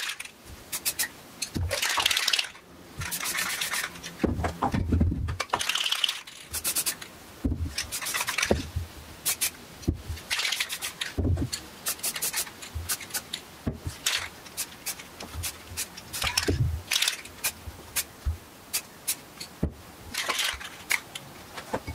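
Aerosol spray-paint cans hissing in short bursts as dark stripes are sprayed, mixed with sharp clicks and knocks of the cans being handled.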